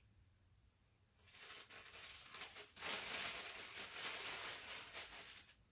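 Tissue-paper packing crinkling and rustling as it is handled and pulled apart. It starts about a second in and stops just before the end.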